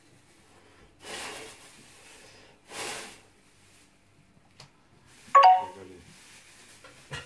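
A thin plastic bag rustling as it is shaken open, in two short bursts, then a brief loud ringing tone about five seconds in and a sharp click near the end.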